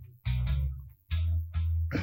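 Background music with a heavy low bass, playing in short phrases with brief gaps between them.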